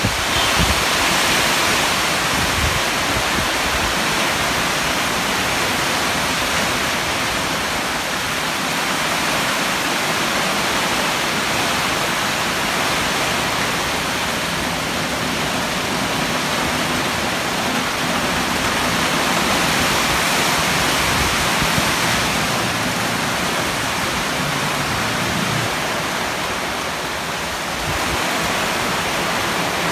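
Typhoon downpour with strong wind through the trees: a loud, steady rush of heavy rain that swells slightly about two-thirds in and dips briefly near the end.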